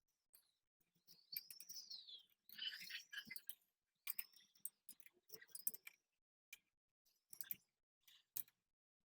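Faint scattered clicks and short squeaks, several rising then falling in pitch, of plastic bike pedals being handled and threaded onto the crank arms.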